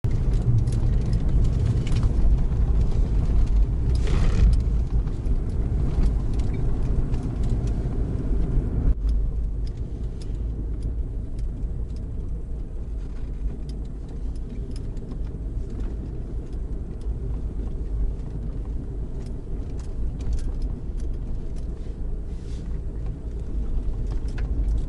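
Car driving along a rutted dirt track: a steady low rumble of engine and tyres with many small knocks and rattles from the rough ground. It is louder for the first nine seconds or so, then eases off.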